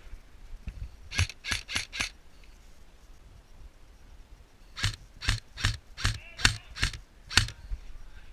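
Airsoft gun firing single shots as sharp snapping clicks: a quick string of four about a second in, then about seven more a few seconds later.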